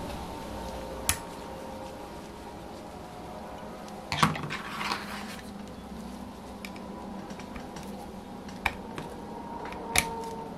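Small metal clicks and a short clatter, loudest about four seconds in, as a hex screwdriver and the rocker-arm parts of a model four-stroke engine are handled on a workbench mat, over a faint steady hum.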